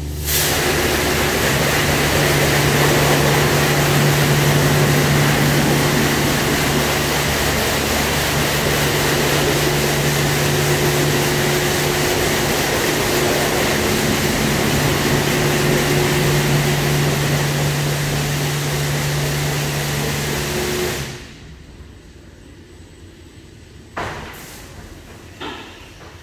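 WashTec SoftCare2 Pro rollover car-wash gantry spraying water over a car: a loud, steady hiss over a constant pump hum. It cuts off suddenly about 21 seconds in, followed by two short knocks near the end.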